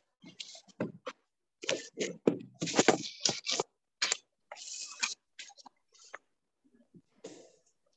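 Irregular bursts of rustling, scraping and clicking handling noise, picked up by a video-call microphone and cutting in and out, densest a couple of seconds in.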